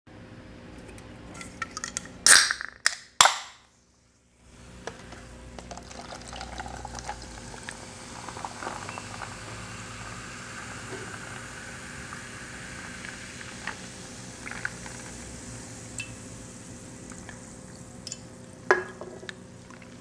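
Mountain Dew soda poured from an aluminium can over ice into a plastic cup, with a steady fizzing hiss. Two loud, sharp sounds come about two and three seconds in, and a sharp knock near the end.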